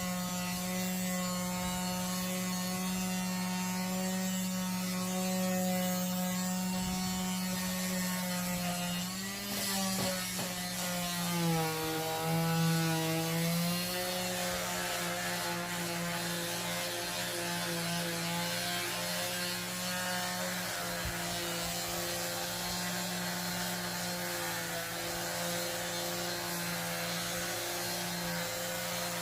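Electric sander running on wood: a steady motor hum with a rasping hiss on top, its pitch dipping twice about a third of the way through before settling again.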